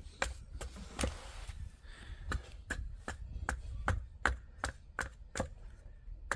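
Sharp knocks repeating at a very even pace, about two and a half a second, like chopping on a board, with a brief hiss of noise about a second in.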